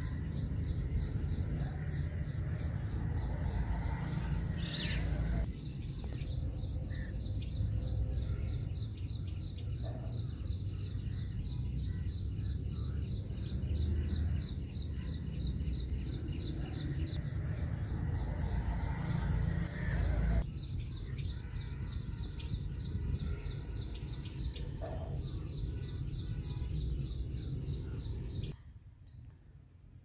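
Wind rumbling on the microphone under birds chirping, with a fast, even run of short high chirps, several a second, going on throughout. The sound drops off sharply near the end.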